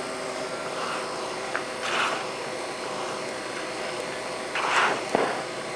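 Hands squishing and kneading raw ground meat with breadcrumbs, vegetables and egg in a plastic mixing bowl, with wet squelches about two seconds in and again near the end, over a steady machine hum.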